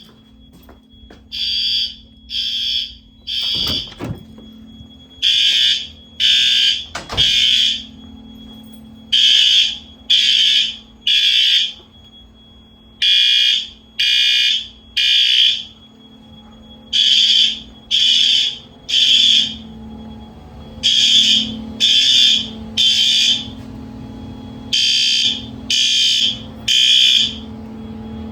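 Fire alarm horn strobes sounding in alarm after a manual pull station has been pulled. They give three short buzzy horn blasts, then a pause, repeating about every four seconds: the temporal-three evacuation pattern.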